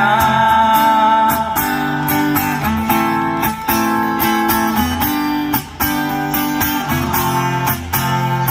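Instrumental music between sung lines of a Hindi film-style song: a plucked, strummed guitar-like melody over a steady bass line and beat, with no singing.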